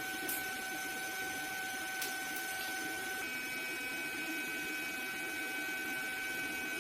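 Steady machine hum with a thin high whine; about three seconds in the whine shifts to a higher pitch, and there are two faint clicks early on.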